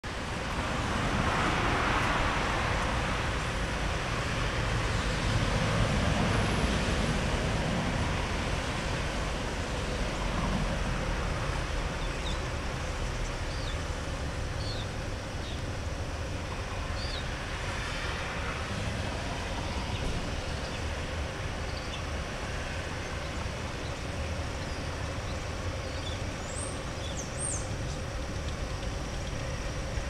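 Steady outdoor rumble of distant road traffic, with a few faint short high chirps in the second half.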